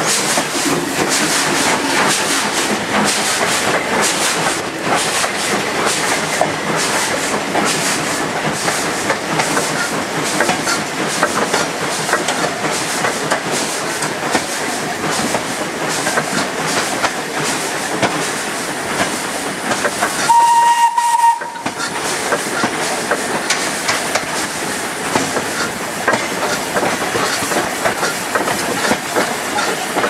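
Small industrial steam locomotive working a train, heard from its footplate: steady chuffing and running clatter. About two-thirds of the way through, the locomotive's steam whistle gives one short blast.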